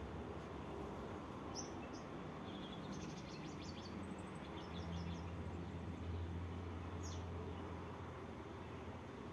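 Yard ambience: a steady low hum with faint, short bird chirps and twitters scattered through, a few at a time.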